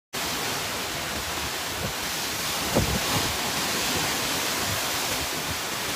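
Steady rushing noise of strong storm wind, with a faint knock about halfway through.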